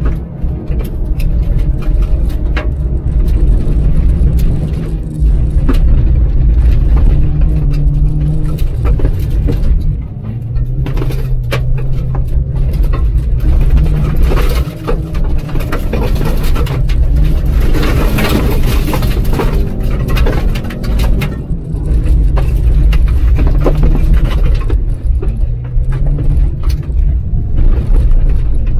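The 1988 AE82 Corolla's 1.6-litre twin-cam four-cylinder 4A-GE engine, heard from inside the cabin, working hard on a dirt course. Its pitch climbs and drops with throttle and gear changes. About halfway through, a loud spell of gravel and tyre hiss lasts several seconds.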